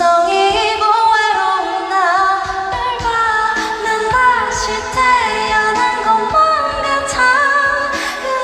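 A woman singing a slow pop melody alone, without instruments, amplified through an arena's loudspeakers, her voice gliding between long held notes.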